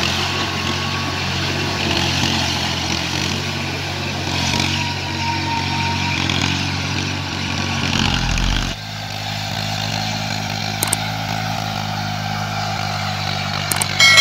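Tractor diesel engine running steadily under load while pulling a rotavator through wet paddy mud. About two-thirds through, it changes abruptly to another tractor's diesel, an Eicher 480, running at a steady speed as it works through deep mud.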